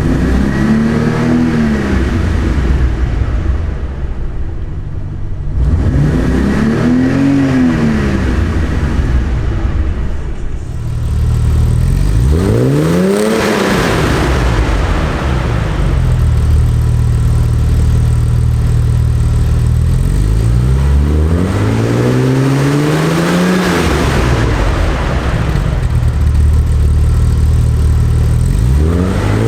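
1982 BMW 320 (E21) Procar Edition engine revved about five times. Each time the pitch climbs and falls back, one longer climb comes past the middle, and the engine runs steadily at a low pitch between the revs.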